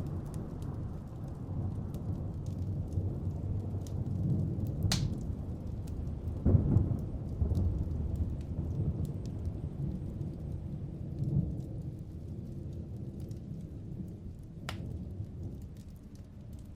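Rain with low rolling thunder, the rumble swelling about six seconds in and fading toward the end, with scattered sharp drop ticks.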